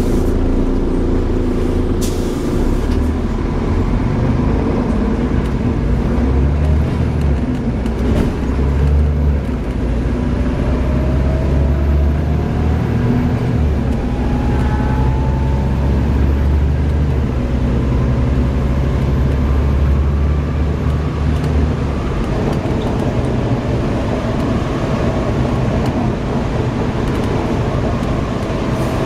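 Volvo B7TL double-decker bus's straight-six diesel running hard under load, with a faint whine rising in pitch from the driveline partway through. The engine's low rumble eases off about three-quarters of the way in.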